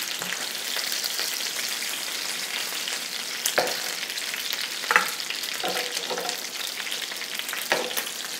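Browned chicken thighs sizzling and crackling in hot fat in a skillet, with a few sharp knocks of the tongs as pieces are lifted out, the loudest about three and a half and five seconds in.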